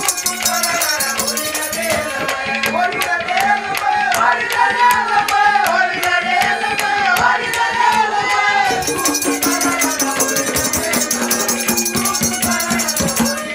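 Haryanvi ragni folk music instrumental interlude: a wavering melody over a steady drone, with regular hand-drum beats and fast jingling rattle percussion.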